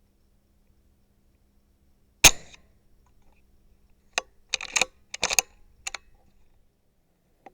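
A single shot from a BSA Superten .22 pre-charged pneumatic air rifle, a sharp crack about two seconds in, followed a couple of seconds later by a handful of short, scuffling clicks and rustles.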